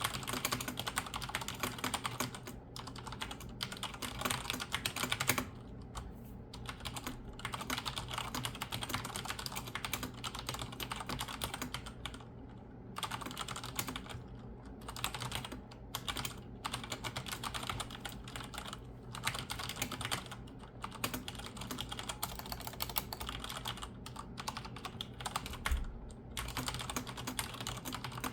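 Continuous fast typing on a vintage 122-key mechanical keyboard, a rapid clatter of keystrokes broken by several short pauses.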